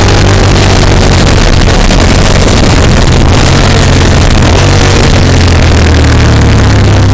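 Motorcycle engine running at speed on a track, heard through an onboard camera's microphone and buried in loud, steady wind rush. The sound is near full level and distorted.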